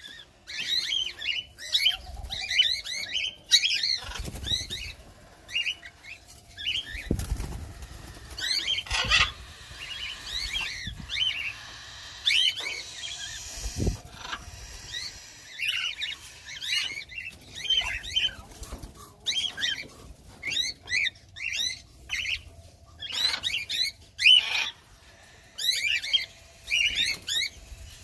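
A flock of cockatiels chirping and calling, in short bursts of quick repeated chirps, with a few soft low thuds among them.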